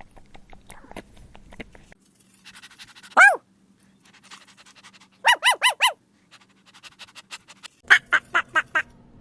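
Domestic poultry calling: one loud call about three seconds in, a quick run of four notes about two seconds later, then a rapid series of about seven loud calls near the end. Faint patter runs through the first two seconds.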